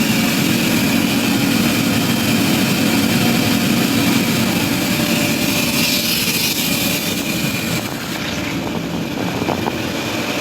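Steady, loud engine-driven wood machinery running, a continuous low drone that eases slightly about eight seconds in.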